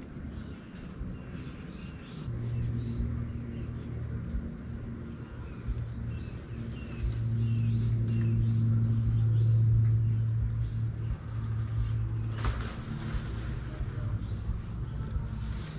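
Birds chirping over and over in short high notes, while a low engine drone comes in about two seconds in, grows loudest in the middle and then eases off. A brief rustling burst sounds near the end.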